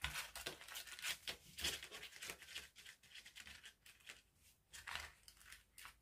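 A sheet of colored origami paper rustling and crinkling in the hands as it is pinched, folded and creased flat, in a run of short, irregular, faint scratchy rustles.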